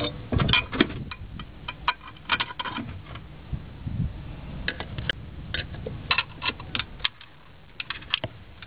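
Light metallic clicks and taps, irregular and scattered, as steel bolts are passed through the EGR valve and its mounting bracket and started by hand.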